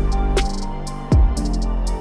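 Electronic background music: sustained synth notes with a deep, falling bass-drum hit about a second in and ticking hi-hats.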